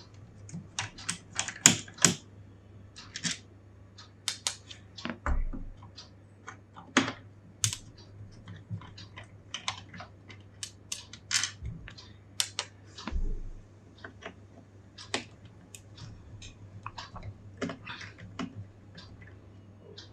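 Irregular small clicks and taps of a precision screwdriver and tiny screws against a laptop's base cover as its back-panel screws are taken out, with a few dull bumps of the laptop being handled.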